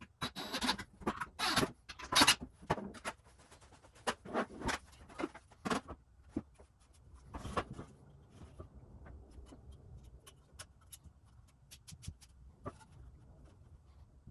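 Irregular clicks, knocks and rustling of hands working with hardware, dense and loud for the first several seconds, then only scattered faint ticks.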